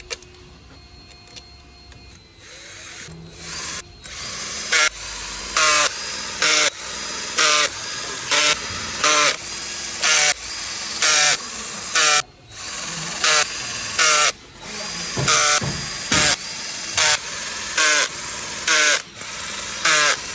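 Power tool run in short repeated bursts, about one a second, starting a few seconds in, over a steady background sound.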